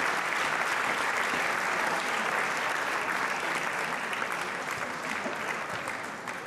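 A crowd applauding, dense clapping that gradually fades toward the end.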